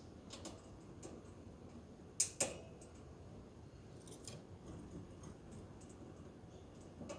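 Scattered sharp clicks and taps from a budgie cage, the loudest two close together about two seconds in.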